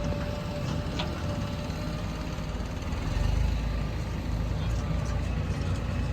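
Heavy diesel earthmoving machinery running steadily with a low rumble, with a sharp click about a second in and a brief rise in engine level around three seconds in.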